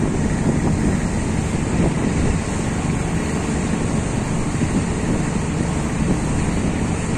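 Steady wind buffeting the microphone on a moving river cruise boat, over the rush of water along the hull.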